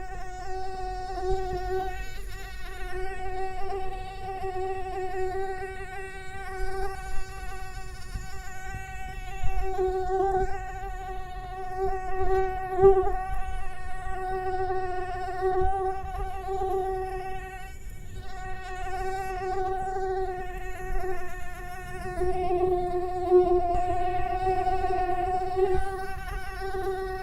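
Mosquito in flight, its wings giving a steady high-pitched whine with many overtones that wavers slightly and swells and fades in loudness as it moves, dropping out briefly about two-thirds of the way through.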